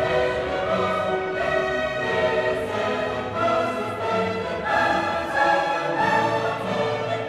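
Orchestral classical music with a choir singing, sustained chords shifting every second or so.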